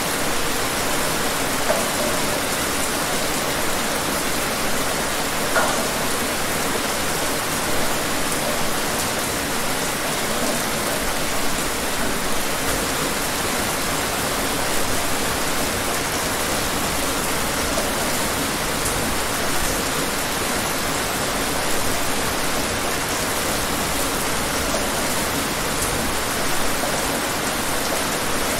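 Steady rain falling, an even hiss of many drops with a few slightly louder single drops.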